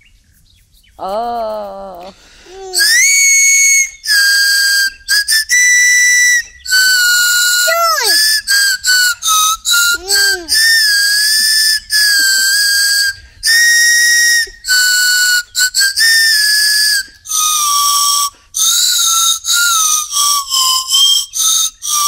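A small pink plastic toy flute played as an improvised tune: a string of clear, high whistled notes, some sliding or bending in pitch, with short breaks between them. The last notes are lower.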